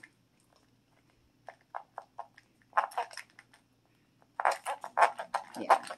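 Gold plastic toy knife scraping and cutting into a red Treasure X Dino Gold dinosaur toy. A few short crunching scrapes start about a second and a half in, and a quicker run of scraping and crunching follows from about four and a half seconds.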